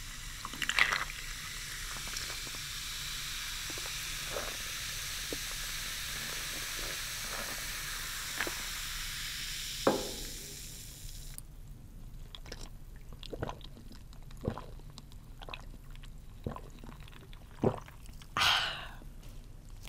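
Zero-sugar cola poured from a can over ice into a glass mug, then fizzing with a steady hiss that cuts off abruptly about eleven seconds in. Scattered small clicks and knocks follow, and near the end there is a short, breathy exclamation.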